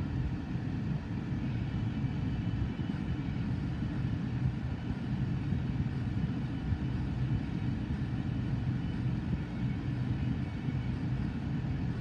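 Manifest freight train's boxcars and covered hoppers rolling past: a steady low rumble of steel wheels on rail, heard from inside a car.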